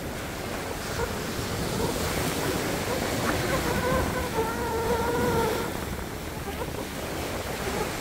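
Sea waves breaking and washing up the shore, swelling louder about two seconds in and easing off around six seconds. A faint wavering pitched sound with overtones is heard over the surf for a couple of seconds in the middle.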